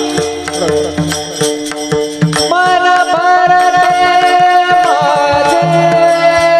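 Devotional kirtan music: pakhavaj drum strokes under long held melodic notes, with singing that bends in pitch in the first couple of seconds.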